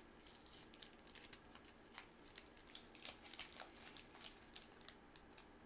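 Faint, irregular crinkling and crackling of a 1983 Fleer wax-paper pack wrapper being peeled open by hand.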